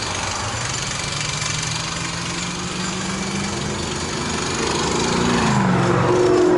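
Road traffic on a busy multi-lane road: engines humming over tyre noise. About five seconds in, a vehicle's engine tone drops in pitch as it passes close, and the traffic grows louder.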